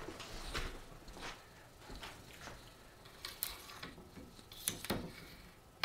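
Telescoping whip antenna being collapsed by hand: a string of faint, irregular clicks and taps, with a few sharper ones in the second half.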